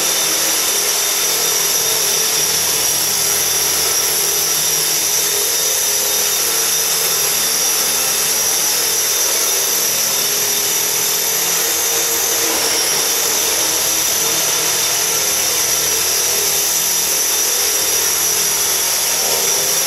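Small electric radio-controlled model helicopters flying: a steady high-pitched electric motor whine over a lower, wavering rotor hum.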